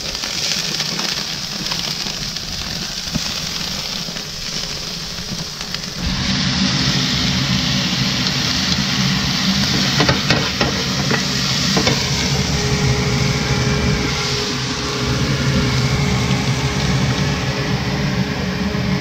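Food sizzling on a hot grill, then, about six seconds in, shrimp frying in a skillet while being stirred with a wooden spoon, the spoon knocking against the pan a few times.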